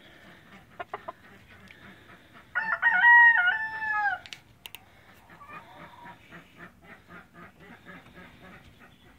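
A rooster crows once, about three seconds in, a short crow of about a second and a half. Faint clucks and light taps come before and after it.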